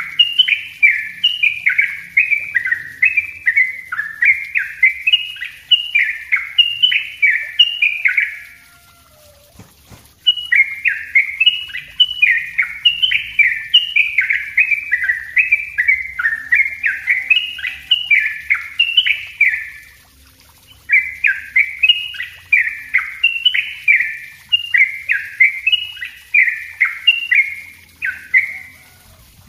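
Yellow-vented bulbul (trucukan) singing its rapid 'ropel' song: fast runs of short repeated notes, about two a second, in three long bouts with two brief pauses.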